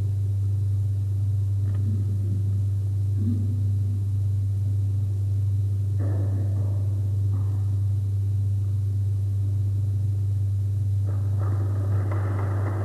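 Steady low electrical hum on the recording, the loudest sound throughout, with faint indistinct room sounds over it that grow a little louder near the end.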